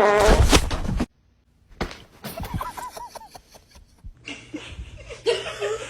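People laughing in short bursts, with a loud outburst at the start and a break of silence about a second in.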